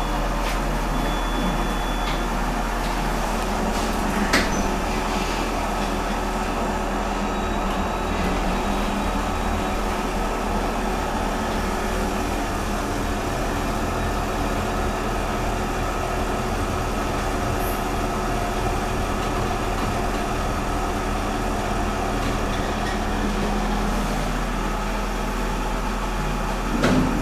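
Steady running hum inside a 1990s Thyssen lift car as it travels, with a single sharp click about four seconds in and a short bump near the end.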